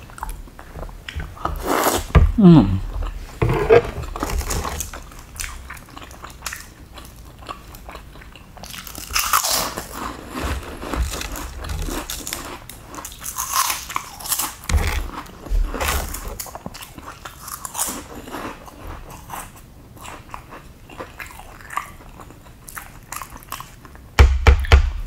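Close-up chewing and biting of bakso meatballs, with many small wet mouth clicks and a few louder bursts.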